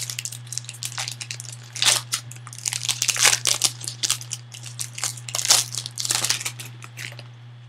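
Foil trading card pack being torn open and crinkled by hand: an irregular run of crackles and rips that stops about seven seconds in.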